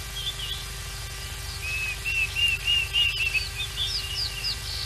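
Wild birds calling: a run of about six clear, repeated whistled notes in the middle, then quick downward-swept whistles near the end, among other scattered chirps.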